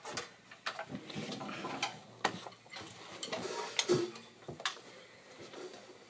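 Irregular light clicks, taps and knocks in a small room as people move about and pick up electric guitars and gear, with the sharpest clicks about two seconds in and around four seconds in.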